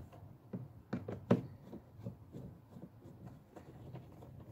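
Light clicks and taps of a screwdriver and small screws against the plastic windshield cowl: a few sharp clicks about a second in, then fainter ticks.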